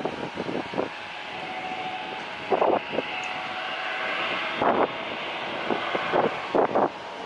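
Distant jet engines of a Garuda Indonesia Boeing 737-800 running as it moves along the runway: a steady rushing hum with a faint whine that swells slightly midway. Short blasts of wind buffeting the microphone every second or so are the loudest sounds.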